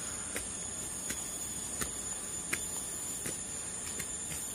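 A steady, high-pitched insect chorus, with footsteps on concrete steps about one every three-quarters of a second.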